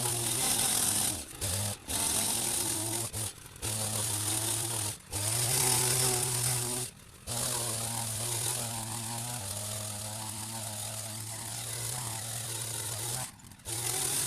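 A hedge trimmer running as it cuts a berberis hedge: a steady motor hum with a hiss from the blades. It stops for a moment several times and starts again, and its pitch drops a little about two-thirds of the way through.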